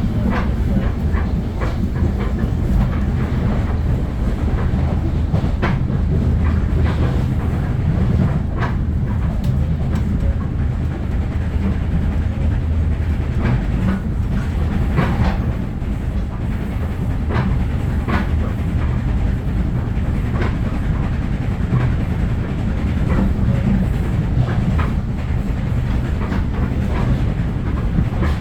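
Train running on rails: a steady low rumble with irregular clicks and knocks from the wheels over the track.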